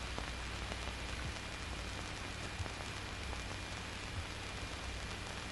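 Steady hiss and low hum of an old film soundtrack, with no other sound standing out.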